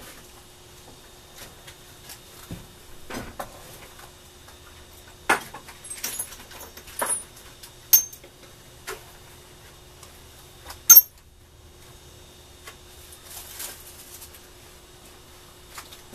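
Scattered clicks, clinks and light knocks of gloved hands handling small hard objects at a workbench, with a sharp clink about eleven seconds in standing out as the loudest.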